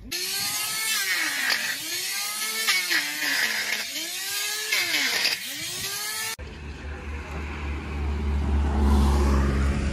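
Electric angle grinder trimming a donkey's hoof. The motor's whine sags in pitch and recovers over and over as it is pressed into the hoof horn and eased off. About six seconds in it cuts off, and a steady low rumble follows that swells near the end.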